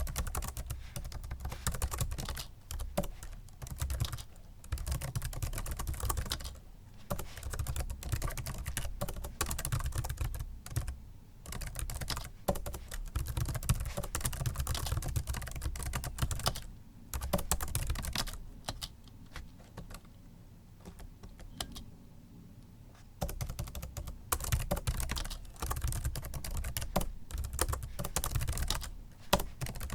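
Fast typing on a Microsoft Sculpt Ergonomic membrane keyboard: dense runs of soft key clicks with short breaks, and a lull of a few seconds a little past the middle before the typing picks up again.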